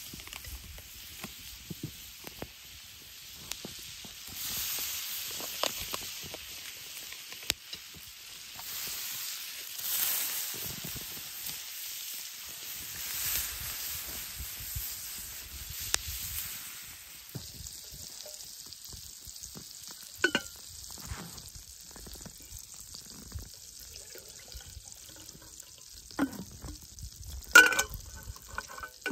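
Diced pork sizzling in a frying pan over a wood fire, the sizzle swelling several times and then easing off after about 17 seconds. A few sharp knocks follow, the loudest near the end as a kettle is set down on the fire.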